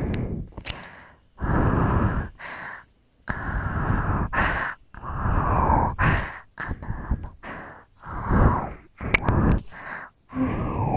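A woman's close-miked breathing and sighs, about nine long breaths in a row with short pauses between them, made as ASMR breathing sounds.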